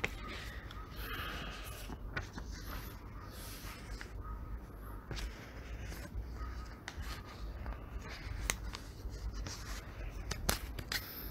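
Faint background room noise with a low hum and scattered light clicks.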